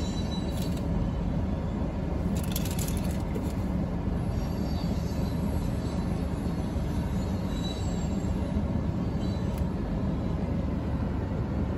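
CSX freight train of coal cars rolling past a grade crossing: a steady rumble of steel wheels on the rails, with a few brief, faint high squeals.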